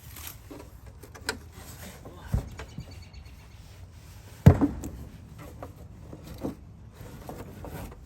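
Objects being handled and set down, giving a few scattered knocks and thuds over a low rumble, with one sharp, loud thump about four and a half seconds in.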